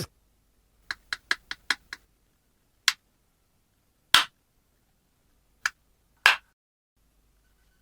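Sharp clicks from handling small toys: a quick run of about six clicks about a second in, then four single clicks spaced a second or more apart, with silence in between.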